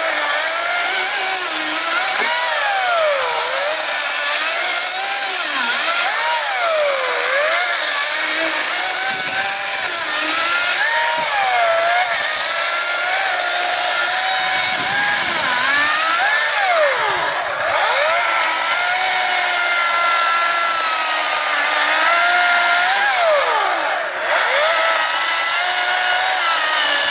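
Ryobi 14-inch 40-volt brushless battery chainsaw cutting through a spruce log. Its motor whine sags in pitch as the chain bites and picks back up again and again. It lets off briefly twice, about two-thirds of the way through and again near the end.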